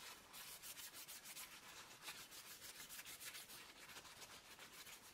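Faint rubbing of a folded paper kitchen towel, damp with isopropyl alcohol, wiped in quick repeated strokes across a glass display screen to clean off marks.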